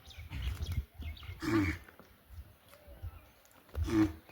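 A farm animal calling twice, short calls with a dipping pitch about a second and a half in and again near the end, over a low rumble.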